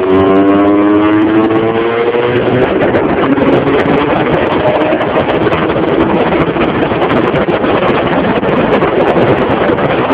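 Small motorcycle engine accelerating, its pitch rising over the first couple of seconds. It then runs at road speed, buried in heavy wind noise on the microphone.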